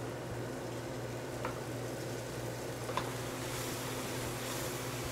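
Chopped fresh herbs frying in a hot stainless sauté pan on a gas burner, sizzling as oil is squeezed onto them. The sizzle grows louder in the second half, and a utensil taps the pan twice. A steady low hum runs underneath.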